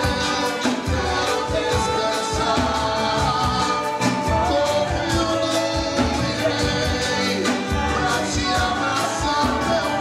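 Gospel band music with singing over drums and percussion keeping a steady beat.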